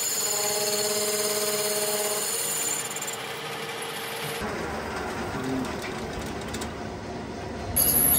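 Metal lathe spinning a machined differential gear body, its headstock running with a steady whine. About three seconds in the whine drops away, leaving a lower, rougher running noise, and a louder sound starts just before the end.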